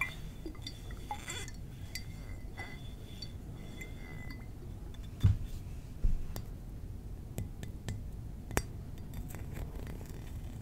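Glass mini-bar bottles being tapped and clinking, with a ringing tone that carries through the first few seconds. There are scattered light taps, and two heavier knocks about five and six seconds in.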